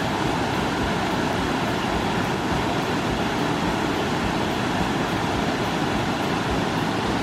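Waterfall rushing steadily, a loud, even noise of falling water.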